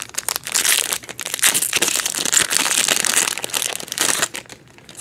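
Foil wrapper of a Topps Gallery baseball card pack being torn open and crinkled. It makes a dense crackle that lasts about four seconds and stops a little before the end.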